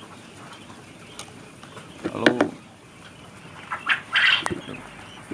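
Caged quail calling: a loud short call about two seconds in and another near four seconds, with a few light clicks from the cage.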